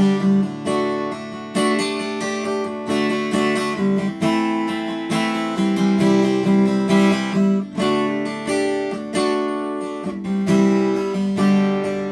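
Taylor 114e acoustic guitar strummed, playing a chord progression as an instrumental interlude between verses.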